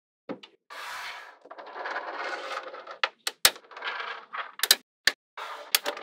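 Small metal magnetic balls clicking as they snap onto a magnet-ball structure, with stretches of dry rattling between the clicks; the loudest click comes about halfway through.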